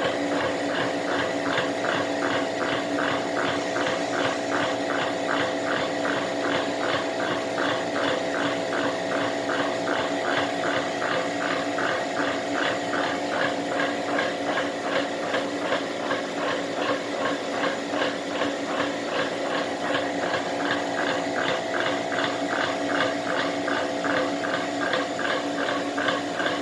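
A Trittico making its abnormal noise (異音): a steady, rapidly repeating mechanical ticking or rubbing, several strokes a second, over a steady hum.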